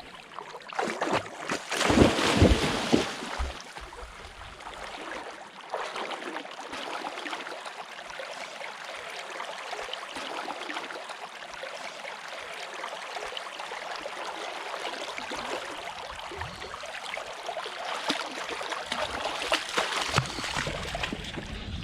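River water rushing: a steady, noisy wash, with a louder burst that has a low rumble about two seconds in.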